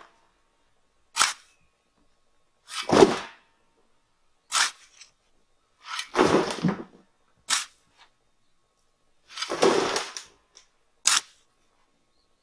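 A square-point shovel scoops dry, powdery dirt from a pile and throws it in around a septic tank, backfilling it. About every three seconds there is a short, sharp scrape as the blade goes into the pile, then a longer rush of dirt landing in the hole.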